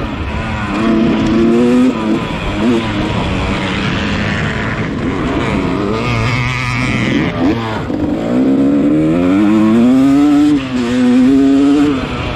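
Yamaha 250 dirt bike engine under race throttle, its note repeatedly climbing and falling as it revs and eases off, dropping low for a couple of seconds mid-way before climbing again.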